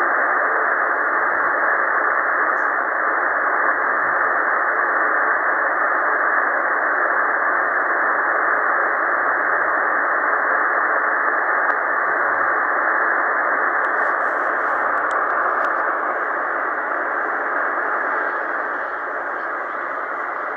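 Steady hiss of shortwave band noise from a Tecsun PL-990x receiver in LSB on the 40-metre band, with no voice on the frequency: the calling station has stood by to listen for replies. It eases slightly near the end.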